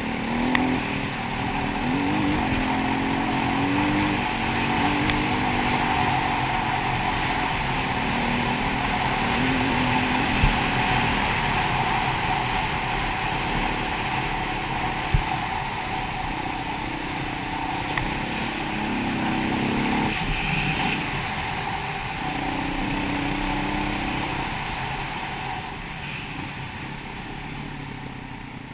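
KTM 525 EXC enduro bike's single-cylinder four-stroke engine running under way, its note stepping up and down with throttle and gear changes, heard from a helmet camera. A few sharp knocks cut through, and the engine eases off near the end.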